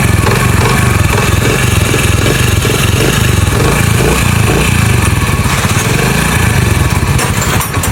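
Four-stroke motorcycle engine running steadily after its timing-chain roller rubbers were replaced and the loose timing chain tightened; the mechanic says the engine's rattling noise is now completely gone.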